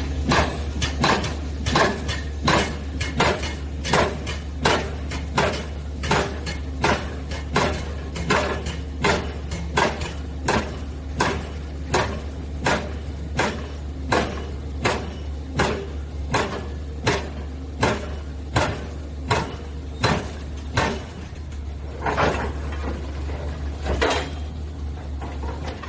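Mini excavator's side-type hydraulic breaker hammering, about two sharp blows a second over the steady low hum of the machine, the blows slowing and coming irregularly for the last few seconds.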